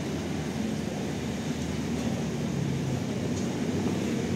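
Large intercity coach's engine running steadily as the bus manoeuvres slowly across the yard.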